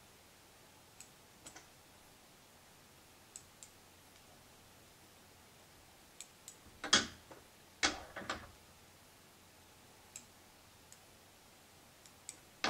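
Small, sparse clicks of fly-tying tools being handled at the vise: fine scissors snipping, then the thread bobbin being worked. There are a few louder knocks about seven to eight seconds in.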